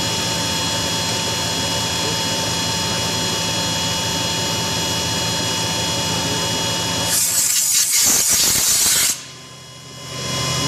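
CNC machine running with a steady hum and several steady whining tones. About seven seconds in, a loud hiss lasts about two seconds and cuts off suddenly; the noise then drops away for about a second before the machine sound returns.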